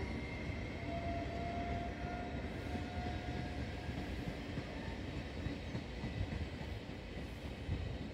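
Trenord double-deck regional train passing at low speed: a steady rumble of wheels on rail. A faint thin whine is heard over it from about a second in for a few seconds.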